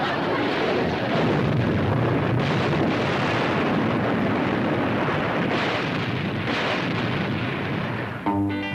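Warship's guns firing and shells exploding, a continuous dense rumble with no break between shots. Music comes in near the end.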